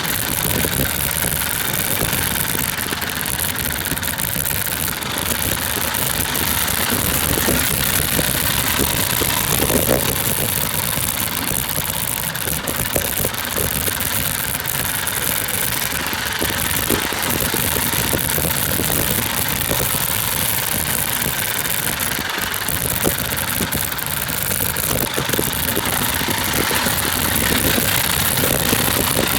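100cc four-stroke moped scooter engine running steadily, with no revving.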